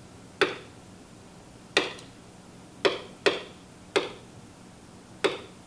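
Six sharp, irregularly spaced taps on an interactive whiteboard's surface as its slide-navigation arrows are pressed to page through slides.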